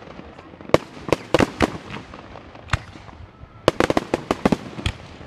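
Aerial fireworks bursting: a run of sharp bangs and cracks, scattered at first, then a rapid cluster of cracks from about three and a half seconds in.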